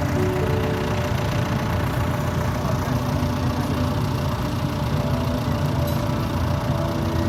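Tractor engine running steadily at idle, a continuous low rumble.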